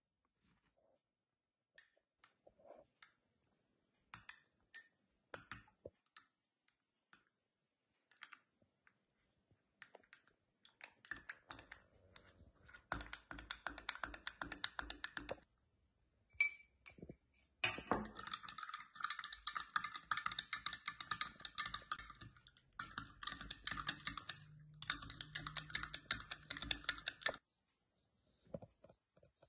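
A metal spoon stirring fresh brewer's yeast into water in a glass tumbler: a fast run of light clinks against the glass, in stretches of a few seconds with short breaks. Before the stirring there are a few scattered soft clicks.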